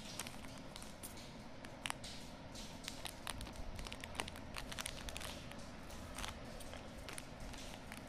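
Scattered soft clicks and rustles of hands fastening a pink rubber watch strap on a wrist and handling bracelets, over a steady low background hiss.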